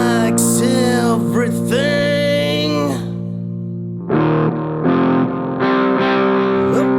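Background music: distorted electric guitar with effects, sustained chords under a bending lead line.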